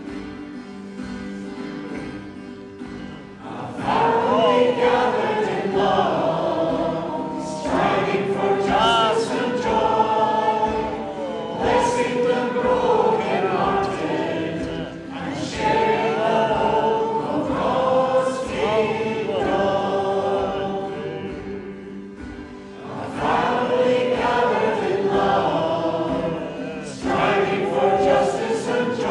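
Choir singing a sung setting of the church's mission statement with instrumental accompaniment; the voices come in about four seconds in after a quieter instrumental opening and sing in phrases, with a brief dip about three quarters of the way through.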